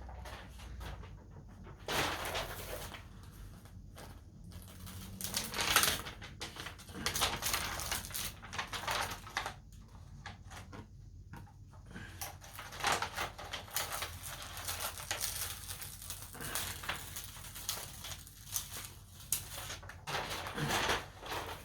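Irregular rustling and handling noises as a rolled diamond painting canvas is opened out and looked over.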